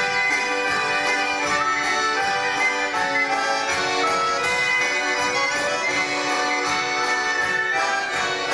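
Folk instrumental ensemble with brass and reed instruments playing held chords over a steady beat.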